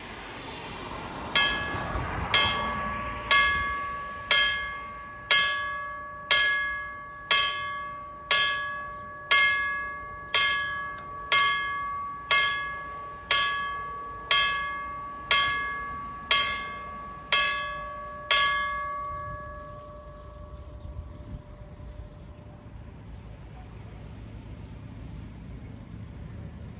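Level crossing warning bell striking about once a second, each stroke ringing on with several bright tones, warning that a train is approaching. It starts about a second in, gives about eighteen strokes, stops, and the ring dies away, leaving faint road traffic noise.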